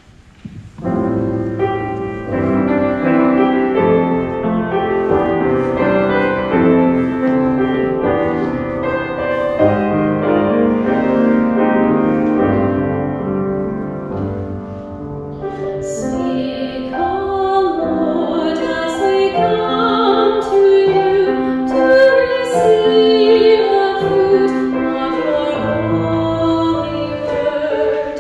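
Grand piano playing an introduction, then a woman's solo voice comes in about halfway through and sings with wavering vibrato over the piano accompaniment.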